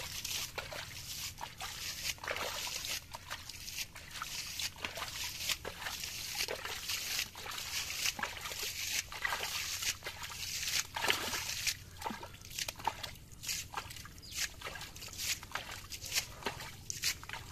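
Muddy water being scooped out of a shallow pit with a hand-held bowl and thrown aside, over and over, an irregular run of sloshing and splashing.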